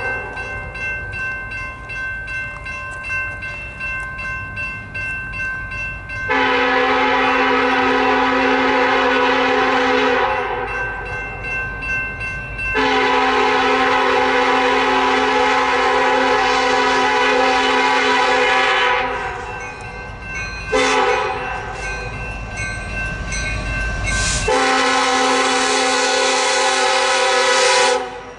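Norfolk Southern SD70ACe No. 1070's air horn sounding the grade-crossing signal as it approaches: long, long, short, long. A crossing bell rings in the gaps, and the rumble of the oncoming locomotive builds through the last blast.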